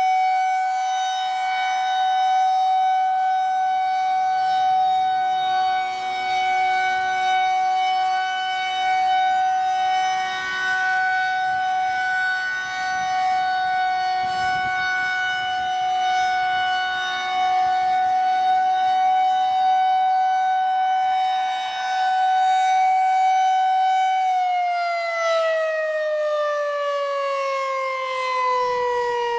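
Federal Signal 2001-130 rotating outdoor warning siren sounding a steady alert tone, swelling and fading as the rotor turns. About five seconds before the end it begins winding down, its pitch falling steadily.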